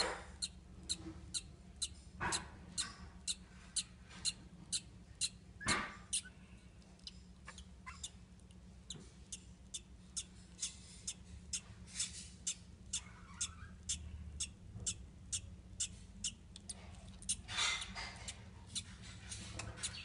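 Newly hatched budgerigar chick peeping: thin, very short, high squeaks repeated steadily about two to three times a second. A few louder rustles and knocks come through near the start and again near the end.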